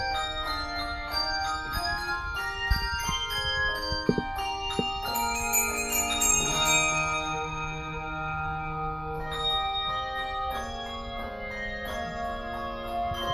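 Handbell choir ringing a Christmas medley: many bell notes struck one after another and left to ring, overlapping into chords, with a few soft low knocks.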